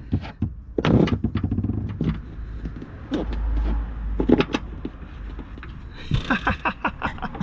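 Knocks, clicks and scrapes as the plywood floor panel and its bolts are handled in a car's boot, with a low thud about three and a half seconds in and a quick run of clicks near the end.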